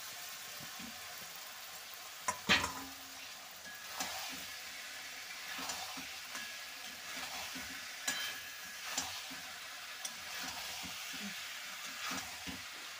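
Potato, broccoli and peas sizzling in oil and spice paste in a metal kadai as a metal spatula stirs them, scraping and knocking against the pan; the loudest clank comes about two and a half seconds in. This is the kosha stage, the vegetables being sautéed in the masala.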